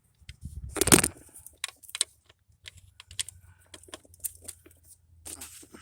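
Irregular small clicks and knocks of handling close to the microphone, with one louder knock about a second in.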